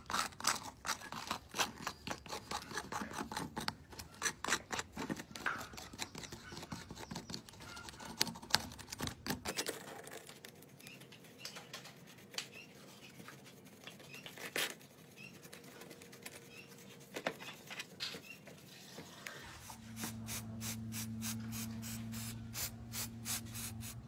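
Gloved hand scraping crusted dirt off a cracked iPhone's glass screen with a thin scraper in quick repeated strokes. The strokes then give way to softer brushing and a few light ticks. A low steady hum comes in about twenty seconds in.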